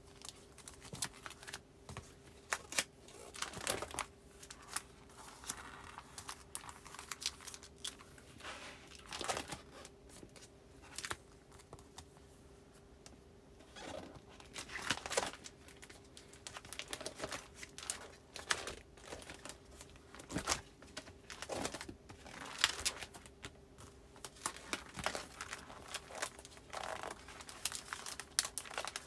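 Postcards and paper goods being handled and slid into the clear plastic pockets of a file binder: irregular crinkling and rustling of plastic sleeves and paper with sharp little clicks, over a faint steady hum.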